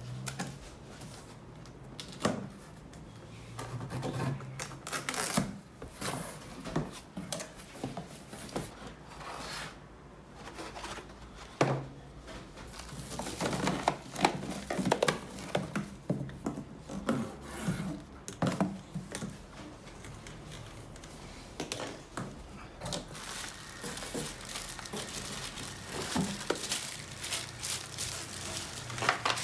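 Unboxing handling noise: a cardboard box being opened and a vacuum cleaner's hose and plastic-wrapped parts pulled out, with cardboard tearing and scraping, plastic bags crinkling and occasional knocks.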